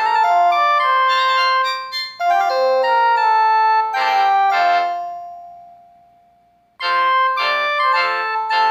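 Polyphonic mobile-phone ringtones playing on the phone's speaker: short synthesized piano-like melodies, one after another. One phrase rings out and fades away about halfway through, and a new tune starts near the end.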